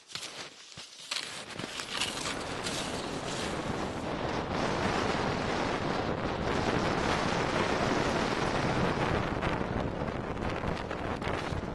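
Strong wind buffeting the microphone, a rough rushing noise that builds over the first few seconds and then holds steady, with a few sharp clicks near the start.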